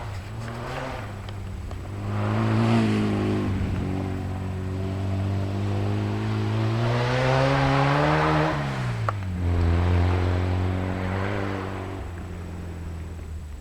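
A motor vehicle engine running, its pitch climbing slowly as it speeds up, then dropping sharply about eight seconds in and settling at a steady lower pitch.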